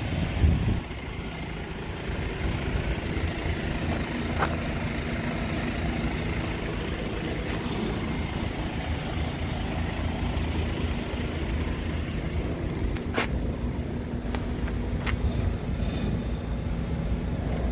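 Outdoor yard ambience: wind on the microphone over a low, steady vehicle rumble, with a few short clicks.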